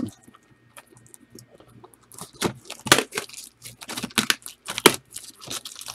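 Packaging being handled, crinkling and tearing in a run of irregular crackles that starts about two seconds in.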